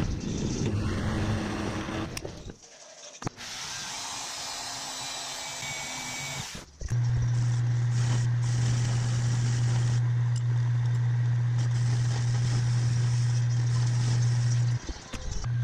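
Machine-shop cutting noise from a mill-drill cutting a clamped metal part for the first couple of seconds. After a short break, a metal lathe runs, turning a small metal part, with a loud, steady low hum from about seven seconds in that drops out briefly near the end.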